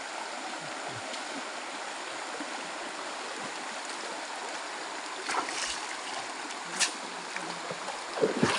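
Shallow stream water running and splashing as a cast net is hauled up, water streaming and dripping out of the mesh back into the stream. A couple of sharper splashes come about five and a half and seven seconds in.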